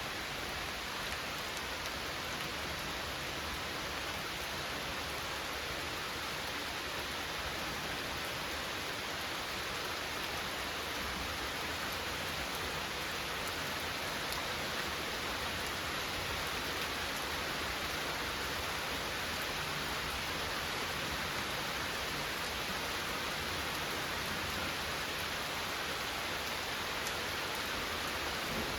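Steady rain falling, an even hiss of drops that neither builds nor stops.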